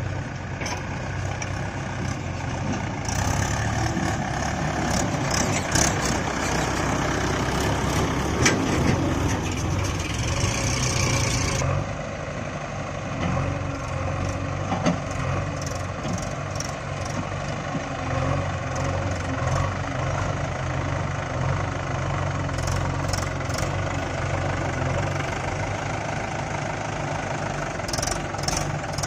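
Heavy diesel machinery engine running steadily at low revs, with a few sharp clacks.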